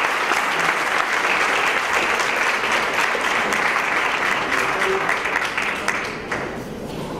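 Audience applauding steadily, dying down about six seconds in.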